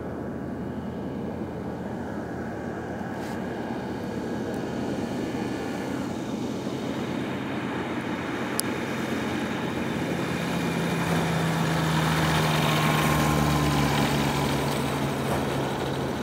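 Merlin ultralight's engine and propeller running as it comes in to land and rolls toward the microphone. It grows steadily louder and is loudest a little past two-thirds of the way through.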